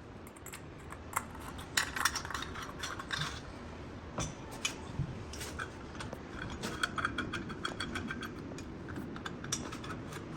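Irregular small metallic clicks, taps and jingles, like metal bathroom fittings and hand tools being handled and worked.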